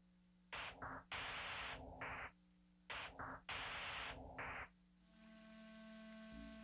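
Electronic music soundtrack: bursts of static-like hiss that cut in and out in a stuttering rhythm, then, about five seconds in, a held synthesizer chord with a tone sweeping upward.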